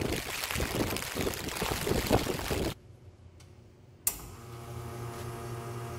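Typhoon wind and rain buffeting the microphone, a loud rushing noise with gusty thumps that cuts off abruptly a little under three seconds in. After a moment of near quiet comes a click, then a steady hum with several pitches.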